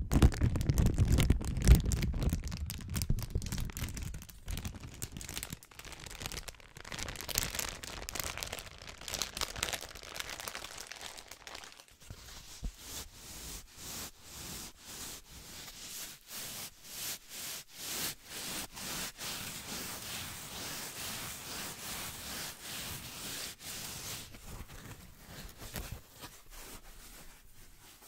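A clear plastic bag crinkled and squeezed close to the microphone, loudest at the start and fading over the first few seconds. About halfway through, the sound changes to thin white sheets flexed and rubbed together in a regular rhythm of short crinkling strokes, which die away near the end.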